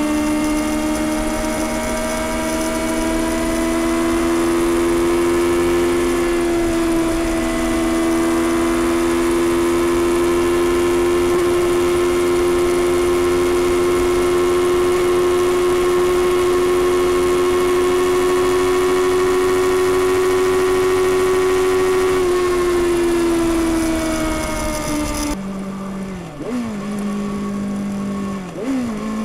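2021 Kawasaki ZX-6R's inline-four engine on its stock exhaust, cruising at steady revs under wind noise. After about 22 seconds the engine note falls as the bike slows. Near the end the wind noise drops away and the engine runs lower, with a couple of quick changes in pitch.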